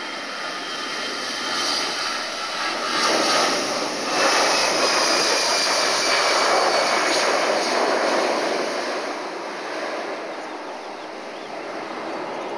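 Airbus A320-214's twin CFM56-5B turbofan engines at takeoff thrust as the jet rolls past and lifts off: a dense rushing engine noise with a high whine that falls in pitch as it passes. It is loudest a few seconds in, then eases as the aircraft climbs away.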